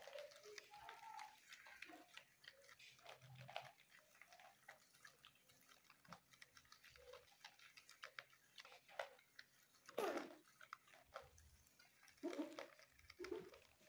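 Guinea pigs chewing and tearing lettuce leaves: faint crunching with many small clicks, and a few louder bursts about ten seconds in and near the end.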